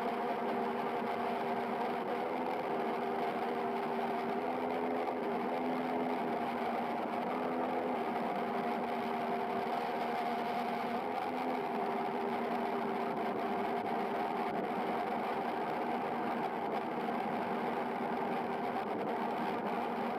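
Waverunner Mark 3 bait boat's electric propeller motors running steadily, heard underwater through the hull and camera housing. It is a constant mechanical whir with several held tones, a few of which waver and drop out briefly now and then.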